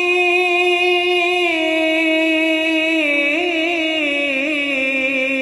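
Male voice singing an Urdu naat unaccompanied, holding one long note that steps slightly down in pitch and then wavers in ornamented turns in its second half.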